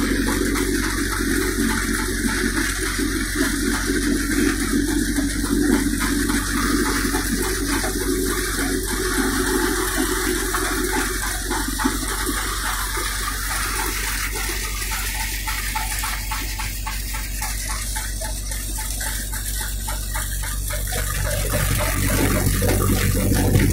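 Groundnut thresher running while plants are fed in: a continuous rushing, rattling churn from the threshing drum over a steady low engine drone.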